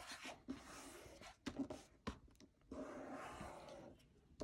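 Faint rustling and rubbing of printer paper being creased by hand along a fold, with a few brief soft clicks of the paper.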